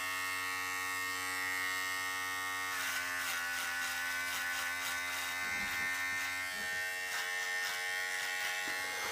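Electric shaver buzzing steadily. About three seconds in its tone shifts slightly and a rough crackle joins in as it is worked through stubble.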